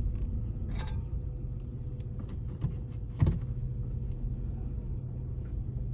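Steady low rumble of a car's engine and road noise heard from inside the vehicle, with a faint constant hum and a sharp knock about three seconds in.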